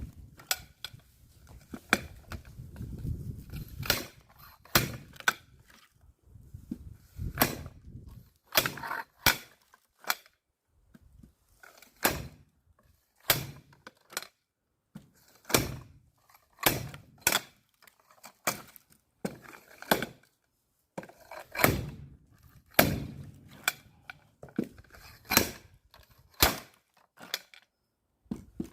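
Axe splitting firewood: a long run of sharp chopping strikes into wood, roughly one every second or so.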